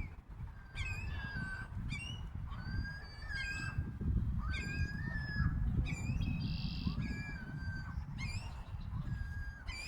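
Seagulls calling: a run of short, sharp calls about once a second, mixed with a few longer even-pitched notes, over a steady low rumble.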